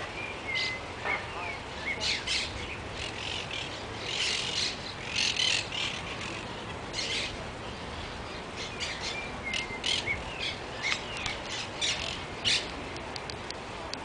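Monk parakeets calling in a flock: a steady run of short, harsh squawks and chatter with a few brief whistled notes mixed in.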